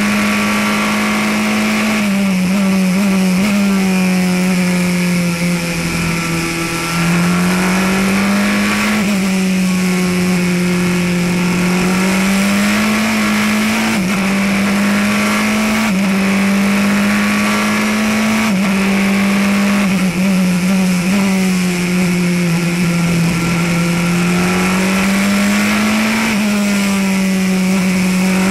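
Praga R1T racing prototype's engine heard from inside the cockpit, its note climbing under throttle and dropping sharply at each gear change, again and again through the corners, over a steady hiss of wind and road noise.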